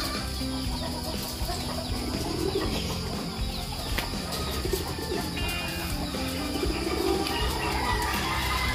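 Doves cooing a few times, low and rounded, over soft background music.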